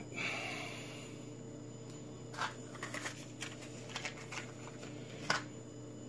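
A heavy breath out at the start, then a string of small sharp clicks and taps as fingers handle a red wire and butt-splice connectors, the sharpest one near the end. A steady low hum runs underneath.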